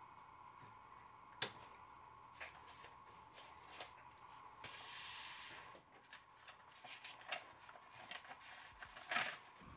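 A large paper envelope slid onto a desk and handled by hands: a soft sliding hiss, then light rustles and small taps as it is settled. A single sharp click about a second and a half in is the loudest sound.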